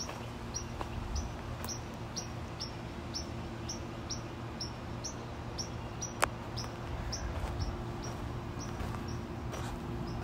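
A bird repeating a short, high chirp over and over, about two a second, over a steady low hum. A single sharp click sounds about six seconds in.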